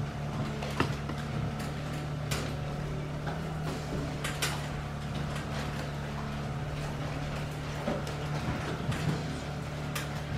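Quiet room tone: a steady low hum, with a few faint, scattered clicks and knocks.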